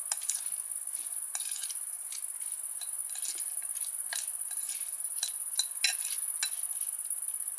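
A serrated knife stirring salad in a glass bowl, with scattered light clicks and taps of the blade against the glass. Under it runs a steady high-pitched insect chirring.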